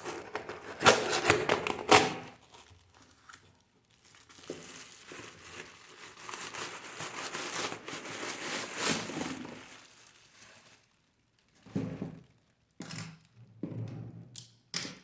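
Delivery packaging being torn open and crumpled by hand: loud tearing strokes in the first two seconds, then a steadier rustle and a few short handling noises near the end.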